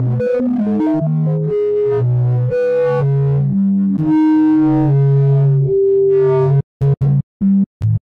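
Background music: a melody of short notes over held low notes. About six and a half seconds in, it is chopped into short bursts with silent gaps between them.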